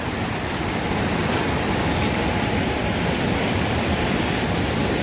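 Steady, unbroken rushing noise outdoors, like flowing water or wind on the microphone, with no distinct events.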